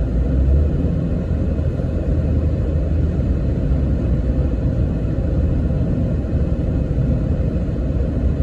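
Steady low road rumble heard inside a moving car at highway speed: tyre and engine noise with no change in pace.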